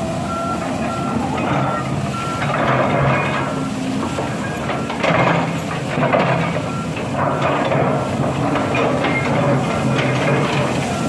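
Large excavator's diesel engine running steadily, with its warning alarm giving evenly spaced short beeps for the first four seconds or so and then stopping. Bursts of rushing noise come and go over the engine.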